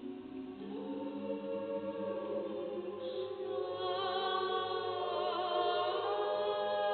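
Slow live orchestral music: held chords that swell gradually louder, the upper notes wavering with vibrato from about four seconds in.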